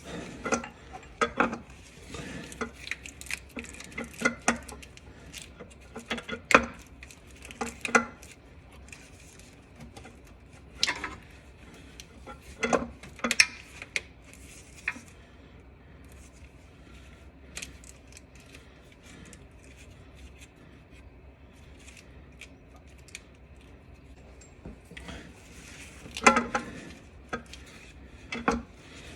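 Irregular metallic clinks and clanks of hand tools and metal parts knocking together as a car starter motor is worked into place against the bell housing. There are bunches of knocks near the start, in the middle and near the end, with quieter gaps between.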